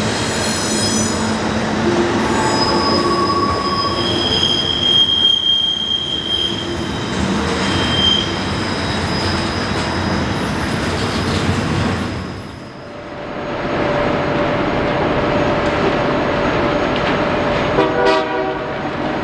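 Freight train rolling by with its wheels squealing in several high, sustained tones over a steady rumble. The sound dips briefly about two-thirds through, then carries on steadily.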